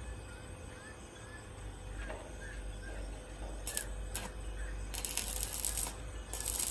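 Small birds chirping faintly over a low rumble. From about four seconds in come several short bursts of loud hissing, rustling noise, the longest lasting about a second.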